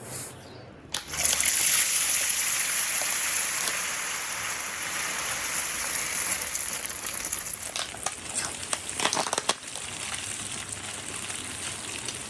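Food going into hot frying oil: a sudden loud sizzle starts about a second in and keeps up steadily, with a cluster of sharp pops and crackles later on.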